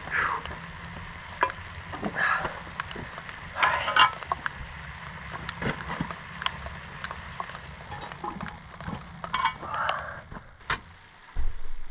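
Food sizzling in a cast-iron Dutch oven over a campfire, with scattered crackles and ticks over a steady low rumble. Near the end the heavy cast-iron lid is set on the pot with a sharp clank.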